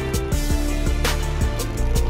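Background music with a steady drum beat over held bass notes.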